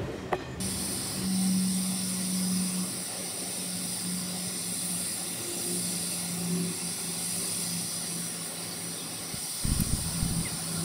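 Bagnall saddle-tank steam locomotive No. 2 hissing steam steadily as it drifts slowly along the line, with a low steady tone under the hiss and a louder low rumble near the end.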